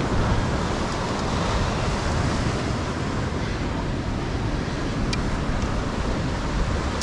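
Ocean surf washing and breaking against a granite rock ledge, heard as a steady rushing noise, with wind buffeting the microphone.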